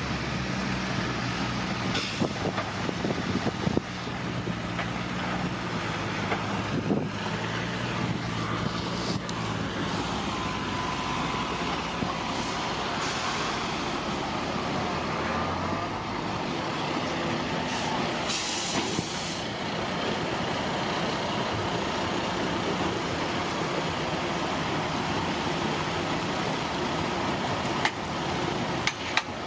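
Bulldozer's diesel engine running steadily under work, with several short bursts of rushing noise, about 2, 12 and 18 seconds in.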